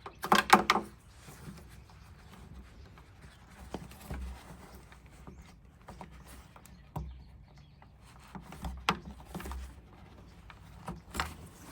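Scattered knocks, clicks and low thuds of a plastic truck headlamp housing assembly being worked loose and lifted out of the front end, with a louder clatter at the start.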